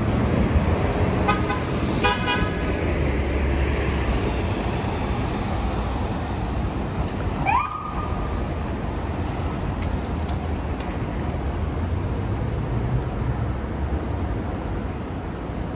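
City street traffic with a steady low rumble, and two short car-horn honks about a second in and again a second later. Near the middle a brief tone rises in pitch and holds for a moment.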